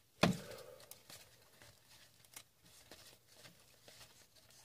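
A stack of Upper Deck Synergy hockey cards being handled and thumbed through, with faint card-on-card slides and clicks. One sharper tap comes a moment in.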